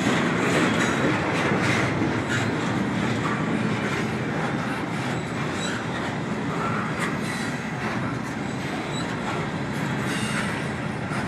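Double-stack intermodal freight train's well cars rolling past: a steady rumble of steel wheels on rail with scattered clicks and clanks and a few faint, brief high wheel squeaks.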